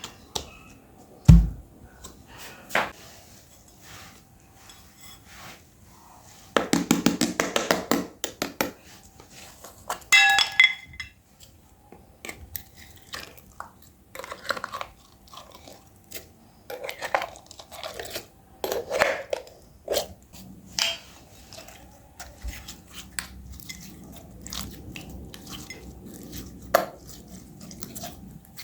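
Slime being forced through a meat grinder: wet, sticky squelching and crackling in irregular spells, with scattered metal clicks and a sharp knock about a second in.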